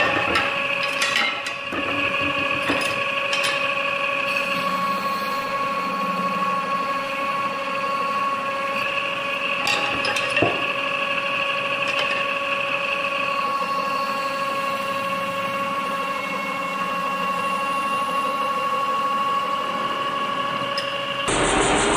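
Metal-spinning lathe turning a copper workpiece, with a steady whine of several held tones as a hand-held spinning tool is worked against the spinning metal. There are a few sharp clicks and taps, most near the start and around ten seconds in. Near the end a cut brings in a louder, rougher machine noise.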